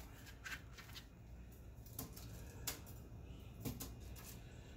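A few light, scattered taps of a kitchen knife slicing onion on a plastic cutting board, then onion slices being set down in a foil-lined pan.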